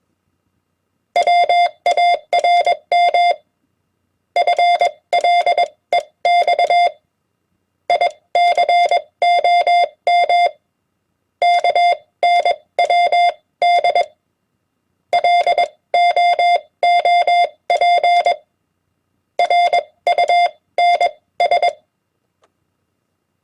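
Morse code (CW) beep keyed with a Vibroplex Vibrokeyer at 20 words per minute: a steady tone switched on and off in dots and dashes. It comes in six groups of two to three seconds each, one common ham-radio QSO word or abbreviation per group, with pauses of about a second between them.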